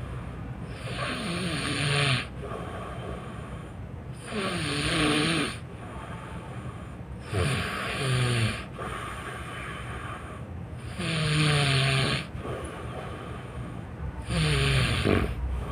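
A sleeping person snoring loudly, five rattling snores about every three and a half seconds, each sliding down in pitch.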